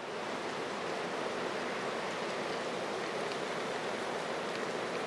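Steady rushing outdoor ambience in a forest, a continuous even hiss with no distinct events, fading in at the start.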